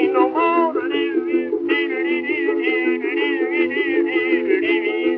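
Instrumental passage from a 1924 acoustic-era 78 rpm record: a steady chordal accompaniment under a wavering high melody line, with no singing.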